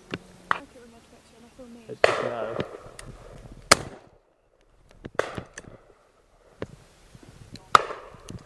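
Shotgun shots: three loud reports with short echoing tails, about two seconds in, just before four seconds and near the end, from the gun beside the microphone. Fainter shots from other guns along the line fall between them.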